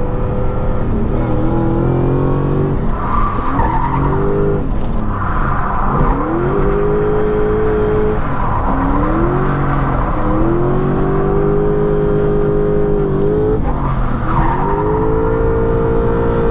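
Toyota 1UZ V8 in a drifting Lexus IS200, revving up in repeated pulls, holding high revs for a second or more, then dropping back between them. Tyres squeal during the slides, a few seconds in and again near the end.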